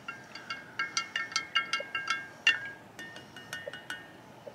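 A wooden spoon stirring a drink in a glass mason jar, clinking against the glass several times a second so the jar rings. The clinks thin out after about three seconds and stop near the end.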